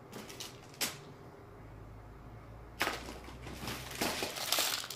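Craft supplies being handled: a sharp click a little under a second in, a louder click near the middle, then rustling and crinkling that grows toward the end.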